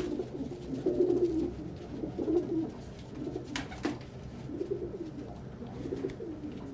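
Pigeons cooing, a male's repeated low warbling courtship coos directed at a hen. There are a couple of sharp clicks about three and a half seconds in.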